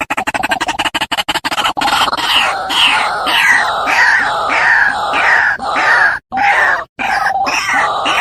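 White-breasted waterhen (ruak-ruak) calls played as a bird-lure recording. A fast stutter of low croaks gives way to harsh repeated calls about twice a second, broken by a few short silent gaps near the end.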